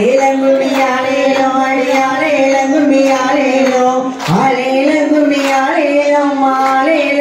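A woman singing a Tamil kummi folk song, holding long drawn-out notes, with a brief break for breath about four seconds in.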